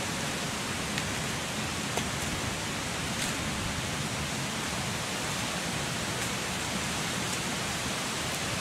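Steady hiss of outdoor background noise, with a few faint snaps as dry coconut husk fibres are torn away by hand.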